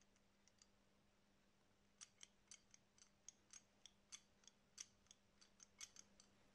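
Worm screw of a wide-jaw adjustable wrench turned by thumb, the movable jaw sliding with a quick run of faint, light metallic clicks, about four or five a second, starting about two seconds in after a couple of single clicks.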